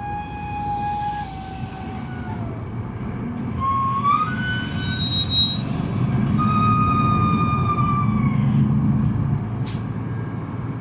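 Articulation joint of a Solaris Urbino 18 III articulated bus squealing very loudly, in several drawn-out squeals that hold, then slide down or glide up in pitch. The bus's DAF six-cylinder diesel runs underneath and pulls harder in the second half.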